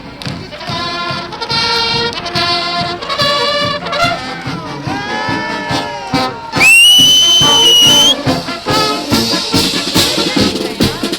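Brass band playing, with changing pitched notes over a regular beat. A little past halfway a very loud, shrill high note slides up and is held for about a second and a half, then the band carries on.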